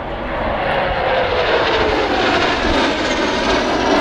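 Two display jets flying past in formation, their engines making a steady rushing roar that swells a little and slides slowly down in pitch as they pass.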